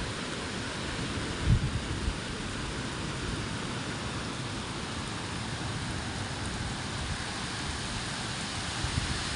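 Steady hiss of rain during a thunderstorm, with a couple of short low buffets of wind on the microphone about a second and a half in.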